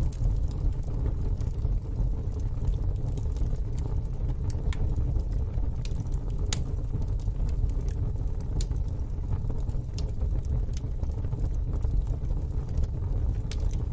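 Wood fire in a fire pit crackling, with sharp pops scattered irregularly over a steady low rumble.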